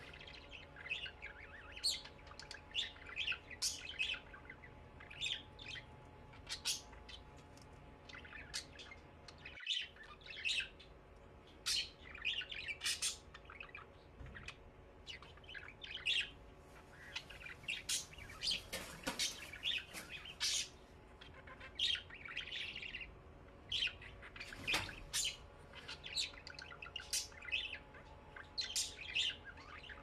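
Caged birds chirping and squawking in short, repeated calls, several every few seconds, over a steady low hum.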